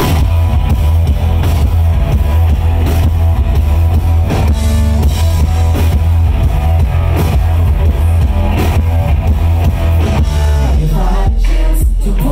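Live rock band playing loud: electric guitar over a drum kit, with a man singing into the microphone near the end.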